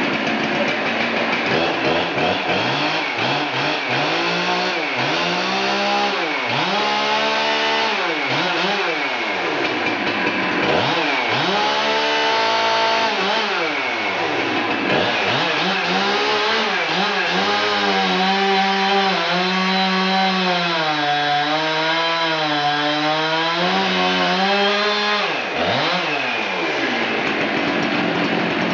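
Husqvarna 372 XPW two-stroke chainsaw revved up and down several times, then held at high revs for about nine seconds with its pitch wavering as it cuts through the log. It drops off near the end and revs up once more.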